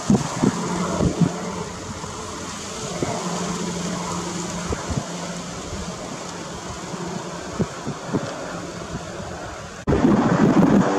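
Helicopter in flight: a steady drone of engine and rotor, jumping sharply louder near the end.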